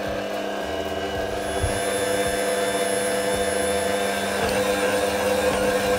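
SMEG stand mixer running steadily at a constant pitch, its dough hook kneading a soft pinsa dough of flour, water, yeast and oil in a glass bowl.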